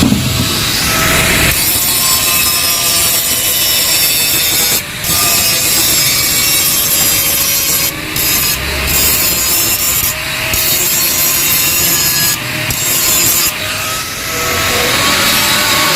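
Angle grinder cutting into the steel of a Yamaha RX-King exhaust, running steadily with a high whine and lifted off the metal for a moment five or six times.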